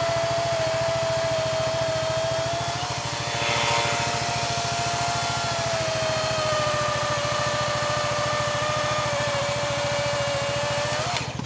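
DeWalt 60-volt cordless chainsaw with a 20-inch bar bucking a log, its steady motor whine sagging a little in pitch as it bites into the wood and cutting off abruptly near the end. A mini-excavator's engine runs underneath throughout.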